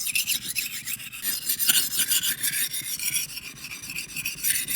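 Steel knife edge being ground on the 1000-grit stone of a Rolling Stone Pro sharpener: a continuous gritty rasp of abrasive on steel that swells and fades with each stroke.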